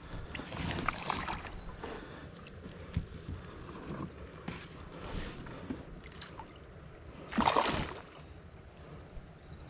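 Scattered small knocks and water sounds around a fishing kayak, with a louder rush of splashing noise about seven and a half seconds in.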